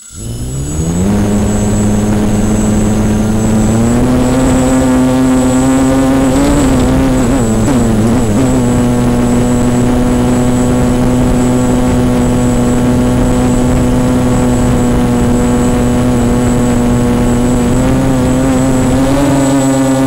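Walkera 250 racing quadcopter's electric motors and propellers, heard from the camera mounted on the drone, spinning up from rest into a steady hum with a thin high whine above it. The pitch steps up around four seconds in, wavers briefly near eight seconds, and rises again near the end as the drone lifts off.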